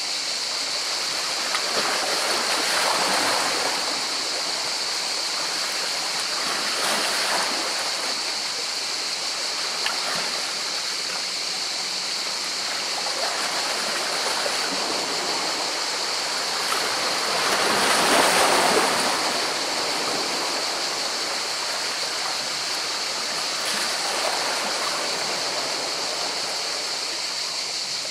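Sea waves washing in against rocks: a steady rush of water that swells four times as waves come in and break, the biggest swell a little past the middle.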